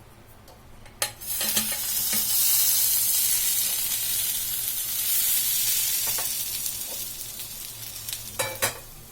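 Grated-potato cake laid back into hot ghee in a pan: a knock about a second in, then steady sizzling frying that slowly dies down, with a few utensil clicks near the end.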